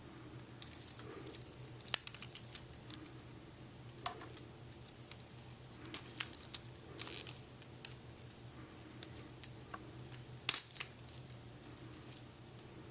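Scattered light clicks and clinks of a stainless steel watch bracelet and its small plastic tags being handled, with a little rustling, over a faint steady low hum. The sharpest clicks come about two seconds in and again near the end.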